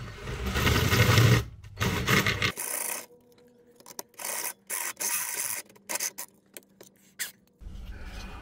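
Cordless drill with a step drill bit cutting through the metal panel of a coax switch box, in a long burst and then a short one over the first two and a half seconds, widening a hole to 20 mm. After that, scattered scrapes and knocks as the box is handled.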